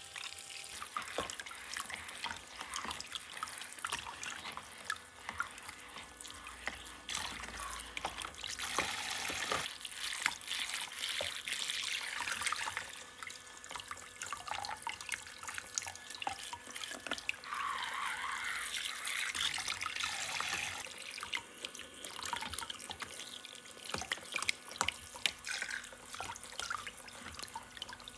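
Water running and splashing in a small toy sink, with many light plastic clicks and taps from the toys being handled.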